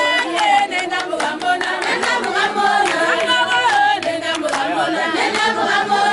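A group of women singing together with hand claps.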